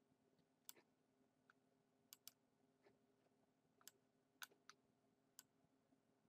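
Near silence broken by about nine faint, irregular clicks of computer controls.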